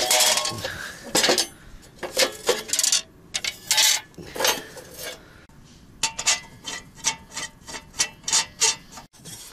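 A portable metal barbecue grill (mangal) being handled, its metal parts clattering and scraping in a string of irregular knocks. A quicker run of light clinks comes in the second half.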